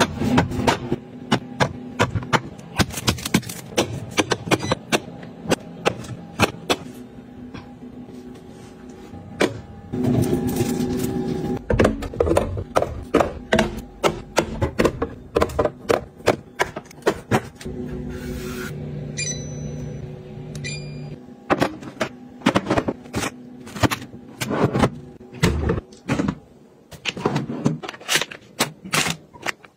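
Plastic drink bottles and cups clacking and knocking as they are set onto refrigerator shelves and into door bins, then plastic food packets crinkling as they are laid in a pull-out freezer drawer. The sound is a dense run of short, sharp taps.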